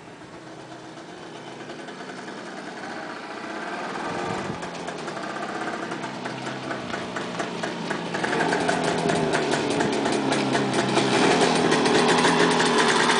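James Superswift motorcycle's Villiers 2T two-stroke twin engine running as the bike rides toward the listener, growing steadily louder until it arrives close by near the end.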